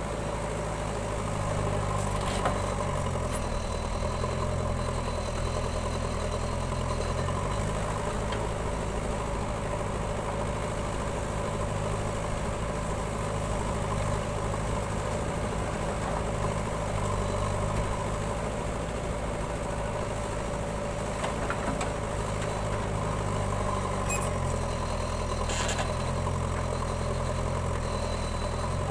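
Diesel engine of a JCB backhoe loader running while it digs and loads soil; its note shifts a few times as the hydraulics take load. A tractor's engine idles alongside, and there are a few sharp knocks.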